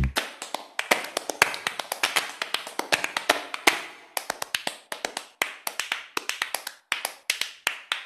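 Background music reduced to a percussive break: sharp taps and claps, several a second, with no bass.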